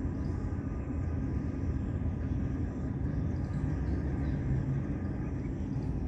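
Steady low outdoor background rumble with no distinct events.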